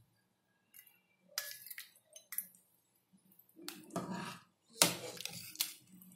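Steel ladle scooping chicken sambar out of a pressure cooker and tipping it into a small steel bowl: scattered metal clinks and scrapes against the pot and bowl with wet sloshes of gravy. The loudest clinks come about five seconds in.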